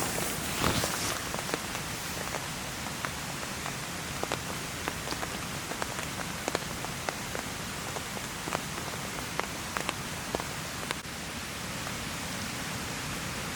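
Heavy rain falling steadily, with scattered sharp taps of single drops hitting a surface close by and a brief louder rustle just after the start.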